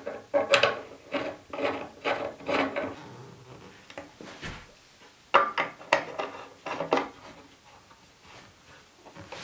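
Black iron pipe fittings and wooden shelf boards knocking and clinking as they are handled and fitted together. The knocks come in two quick runs, one at the start and one about five seconds in, with quieter rubbing in between.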